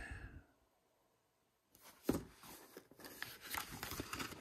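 Printed paper scenario sheets rustling and crackling as they are handled and turned over, starting a little under two seconds in.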